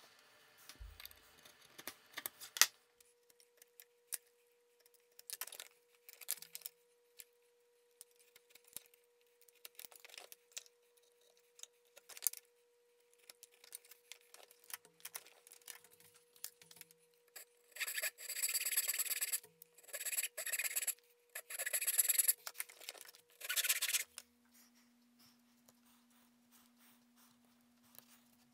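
Small mahogany patch piece worked by hand at the bench: scattered light taps and rubs, then about two-thirds of the way in a run of loud rasping strokes on the wood, some six or seven of them, ending abruptly.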